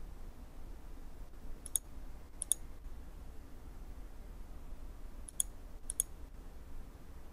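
A computer mouse button clicking a few times, in sharp isolated clicks: a pair about two seconds in and another pair about five to six seconds in, over a faint low steady hum.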